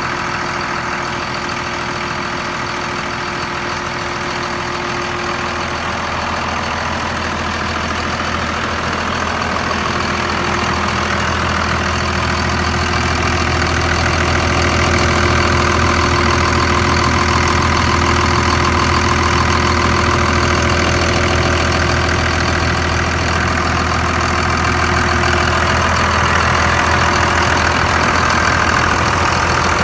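A 5.9L 24-valve Cummins inline-six turbodiesel in a 1998.5 Dodge idling steadily, its valvetrain noise audible after the valve lash was checked. It gets a little louder over the first half.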